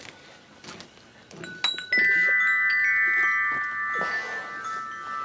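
Chime: several bell-like tones sound together about two seconds in and ring on, slowly fading, after a few light clicks.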